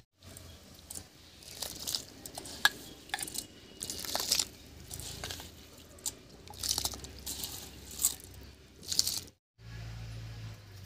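Water at a rolling boil in a wok, bubbling with irregular pops and crackles.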